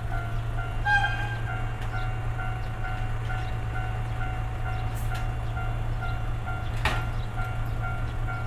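Steady low engine drone with a faint, evenly repeating ding over it, about three a second, and two sharp clicks.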